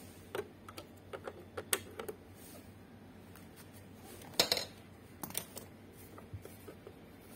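Scattered light clicks and taps of hands working a portable speaker's plastic front panel while a USB flash drive is plugged in, with one louder knock about four and a half seconds in.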